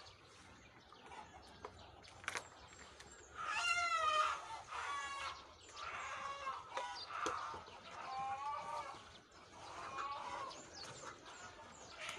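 A rooster crowing, one call of about two seconds starting about three and a half seconds in, followed by more crowing and clucking from chickens. A sharp knock comes just before the first crow.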